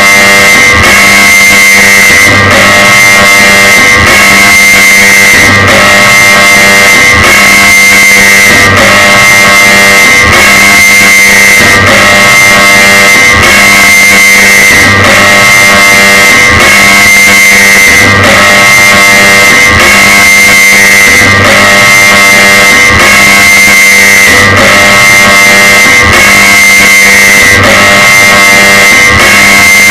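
Very loud, heavily distorted electronic alarm tone, a fan-made Emergency Alert System alarm: steady high and low tones that pulse about every second and a half.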